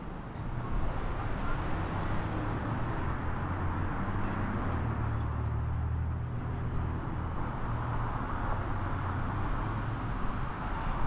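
Car driving in city traffic: steady engine and road noise, with a low hum that swells for a couple of seconds in the middle.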